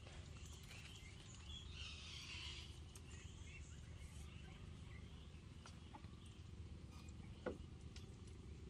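Quiet outdoor ambience: faint bird chirps a couple of seconds in over a low steady hum, with a few light clicks.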